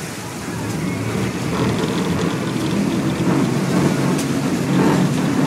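Game-fishing boat's engines running, growing louder over the first two seconds or so and then holding steady.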